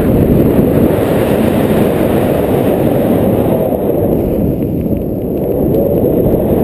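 Airflow in flight blowing across the paraglider's camera microphone: a loud, steady, low wind noise, easing slightly about five seconds in.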